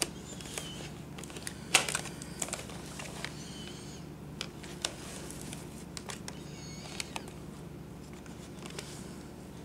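Light plastic clicks and knocks from a Panasonic Palmcorder VHS-C camcorder being turned over in the hands while its eyepiece viewfinder is folded down, the sharpest click about two seconds in, over a steady low hum.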